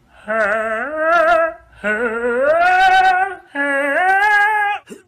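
Tortoiseshell cat yowling: three long calls, each rising in pitch and wavering.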